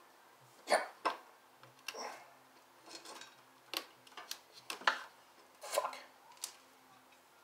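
Sharp metallic clinks and taps of hand tools on motorcycle parts as a new battery is fitted, about ten separate knocks spaced unevenly.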